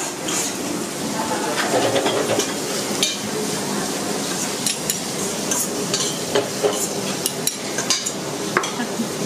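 Food sizzling at a buffet's live cooking station, a steady hiss with scattered clinks and taps of serving utensils.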